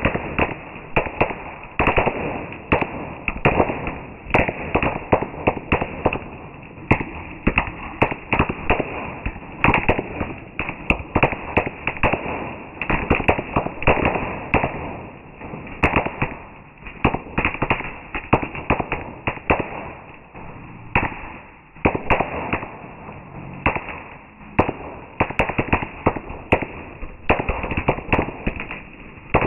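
Fireworks going off in a dense, irregular barrage of sharp bangs and cracks, several a second without a break.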